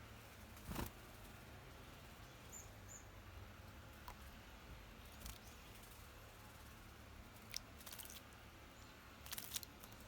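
Faint outdoor background broken by several brief sharp sounds, the loudest about a second in and again near the end, with two faint high chirps around the third second.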